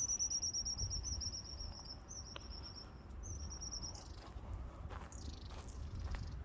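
High-pitched trills of rapid chirps from a small wild creature, in three phrases over the first four seconds, then a single falling chirp, over a low outdoor rumble.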